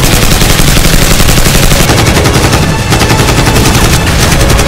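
Rapid, continuous automatic rifle fire: a long stream of shots with a brief break nearly three seconds in. It is a dubbed-in firearm sound effect, not the airsoft gun's own sound.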